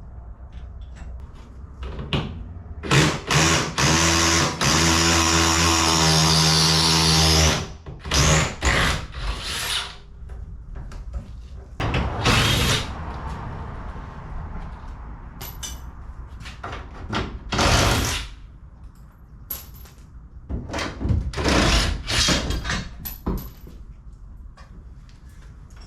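Power drill running in several bursts: one steady run of about four seconds, then a handful of shorter runs.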